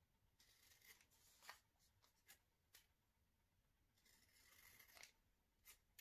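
Faint snipping of scissors cutting through thin card: several short cuts with sharp blade clicks, and a longer cut about four seconds in.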